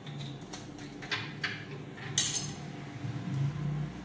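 Wire hand whisk scraping and clinking against a glass bowl as it works through a thick flour batter, with a handful of sharp clinks, the loudest about two seconds in.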